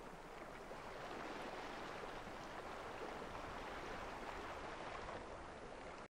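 Faint, steady wash of water lapping, which cuts off abruptly near the end.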